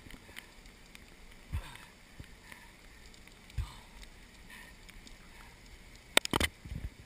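Faint steady rush of flash-flood water in a slot canyon, with wind on the microphone. Two soft low bumps come about one and a half and three and a half seconds in, and a quick cluster of sharp knocks about six seconds in is the loudest sound.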